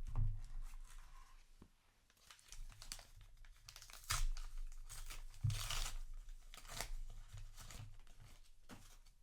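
Trading card booster pack wrapper being torn open and crinkled, with rustling of cards being handled. The loudest, longest tear comes about five and a half seconds in.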